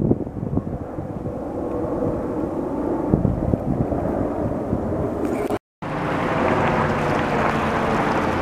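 Wind buffeting the microphone over a low outdoor rumble; after a brief gap of silence about two-thirds through, a helicopter flying over, its rotor and engine giving a steady drone of many stacked tones.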